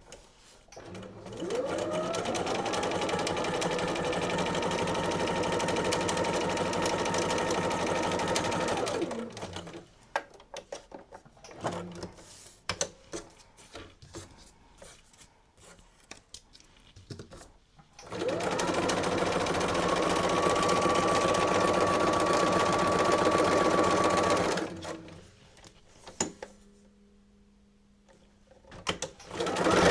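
Electric sewing machine stitching through paper in two runs of several seconds each, the motor's whine rising as it speeds up and cutting off when it stops. Between the runs there are scattered small clicks.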